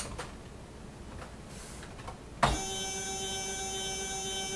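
Stepper motors on a Proxxon MF70 mini mill's CNC conversion, driven by an Arduino with a grbl shield, jogging the axes 5 mm. They start with a click about two and a half seconds in, then give a steady, even whine of several pitches. A couple of keyboard clicks come at the start.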